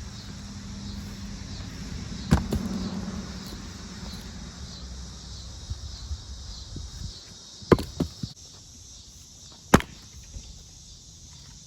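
Sharp knocks of wood being struck or dropped: one about two seconds in, then three more close together near the end.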